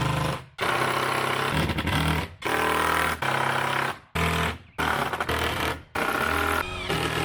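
A motor running in short bursts, starting and stopping about every second with brief breaks between.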